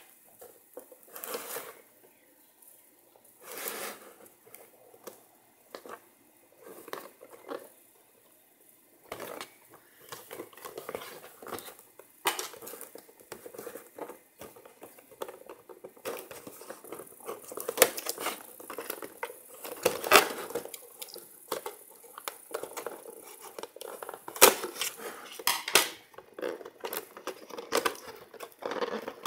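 Cardboard webcam box with a clear plastic window being handled and turned over: irregular taps, scrapes, rustles and sharp clicks of cardboard and plastic packaging. The sounds are sparse at first and come thicker from about a third of the way in.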